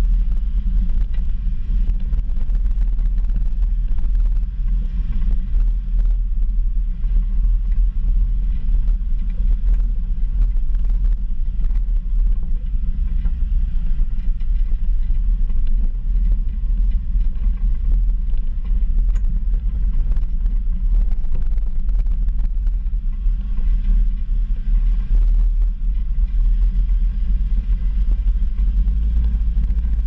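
2019 Jeep Wrangler JL driving off-road: a loud, steady low rumble from the engine and tyres, with scattered short knocks and clicks throughout.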